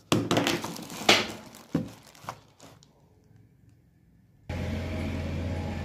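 Plastic packaging rustling and small items clicking as they are handled, then a near-quiet pause. About four and a half seconds in, a steady low hum with hiss starts abruptly.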